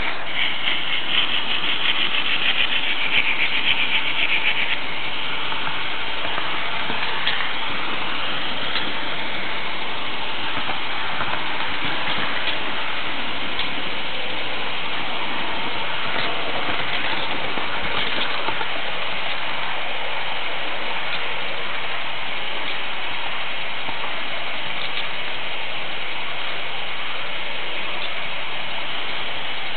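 H0 model train on Märklin track, heard from a camera riding on a flat car: a steady whirring rumble of wheels and running gear, with occasional faint clicks. A brighter, high-pitched edge runs through the first five seconds or so before the sound settles into an even whir.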